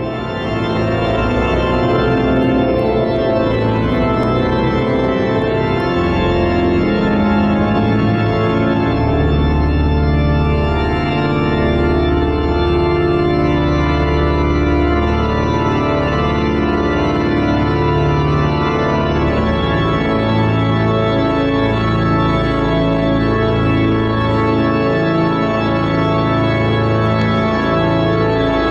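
Church organ playing the prelude to a Sunday morning service: slow, held chords over deep sustained bass notes.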